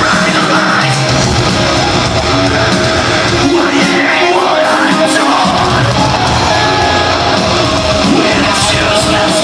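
Live heavy metal: distorted electric guitars, bass and drums playing loudly, with harsh yelled vocals over them, recorded from the audience with the sound saturated and dense.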